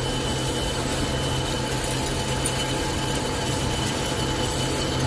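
6-foot lathe running steadily, turning the outside diameter of a 120 mm pipe, with an even low hum.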